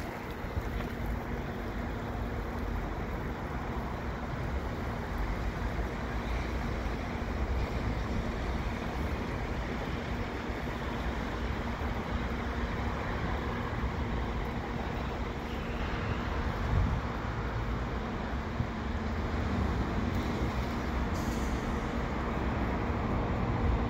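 Commuter train with an F59PHI diesel locomotive standing at a station platform: a steady low rumble with a constant hum, and a sharp click at about three quarters of the way through.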